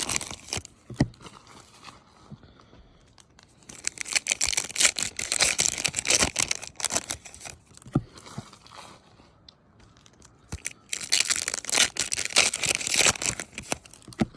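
Trading-card pack wrappers being torn open and crinkled, in two long stretches of rustling with scattered small clicks and taps between them.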